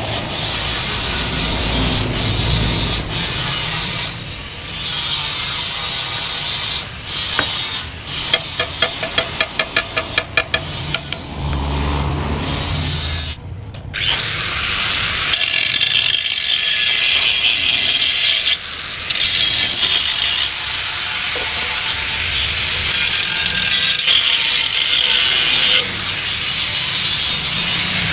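Tool work on the steel of a Yamaha RX-King motorcycle muffler being cut open and hollowed out: a harsh rasping, sawing noise. About a third of the way in it is broken by a run of about ten quick knocks, about four a second. From about halfway the rasping is louder and runs on with brief pauses.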